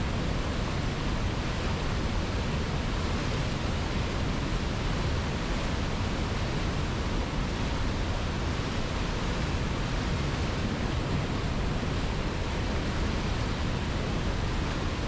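Steady rushing of a flowing river: an even, unbroken wash of water noise that does not change.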